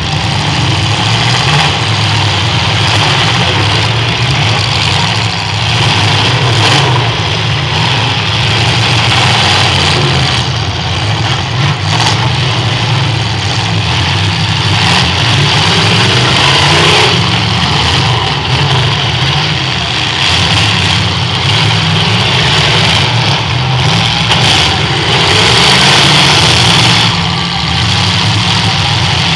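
Engines of several eight-cylinder demolition derby cars running together in a loud, continuous din.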